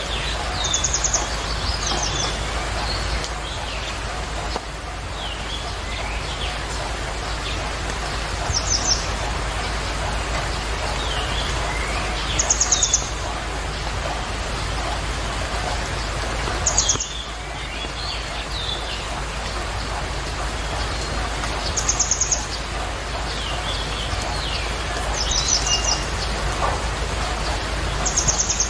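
Small birds chirping every few seconds in short rapid trills and brief twittering calls, over a steady rushing background noise.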